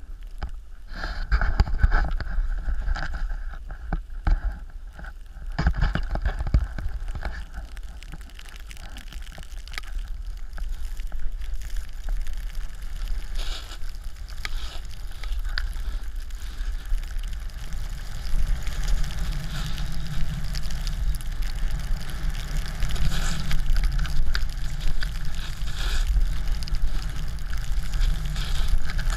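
Snowboard sliding and carving on packed snow, a scraping hiss, with wind rumbling on the pole-mounted GoPro Hero3's microphone. It is uneven at first and grows louder and steadier past the halfway point as the board picks up speed.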